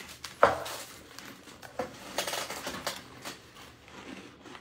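Light clinks and knocks of things handled on a table, the sharpest about half a second in, with a few softer ones after.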